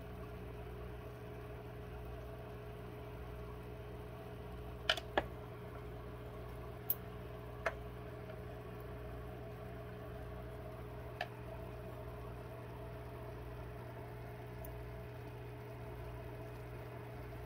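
Steady low hum of running aquarium equipment, with five short sharp clicks: a close pair about five seconds in, then single ones a little later.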